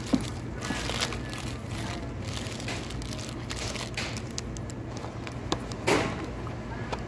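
Close-up eating sounds: chewing, with the paper wrapper of a chicken sandwich crinkling in the hands and small clicks and crackles, over a steady low room hum. A short, louder pitched sound comes about six seconds in.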